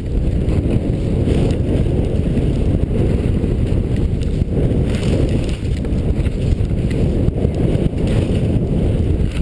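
Wind rushing over a skier's camera microphone during a downhill run, giving a loud, steady low rumble. Over it, the skis hiss through the snow in repeated washes as the skier turns.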